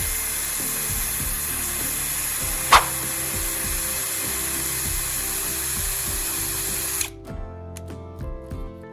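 A power tool, likely a drill, running steadily with one short sharp click about three seconds in, then cutting off suddenly about seven seconds in, leaving background music.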